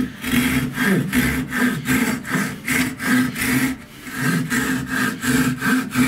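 Silky Gomboy folding saw, a Japanese pull-stroke saw, cutting through a round wooden stick in quick, even back-and-forth strokes, about four a second, with a brief break a little before the four-second mark.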